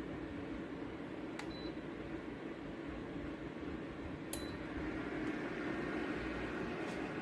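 Lasko Ellipse ceramic tower heater running, its fan blowing with a steady hum. Two sharp clicks come about a second and a half in and again just past four seconds.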